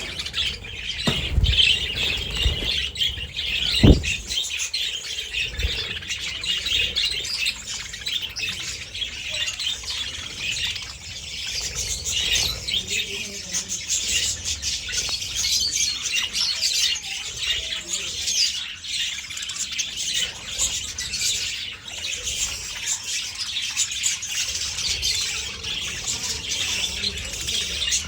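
Budgerigars chattering and warbling continuously, with chirps and squawks. A few low thumps in the first six seconds, the loudest about four seconds in.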